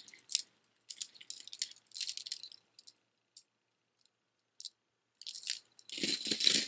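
Costume jewelry (chains, beads and charms) clinking and rattling as it is handled, in short bursts of small clicks with a few scattered ticks in the middle and louder handling near the end.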